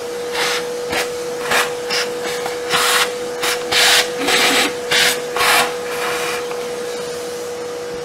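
Workshop vacuum cleaner running with a steady motor tone while its hose nozzle is worked over the inside of an opened espresso machine, sucking and rubbing in repeated short rasping bursts through the first six seconds.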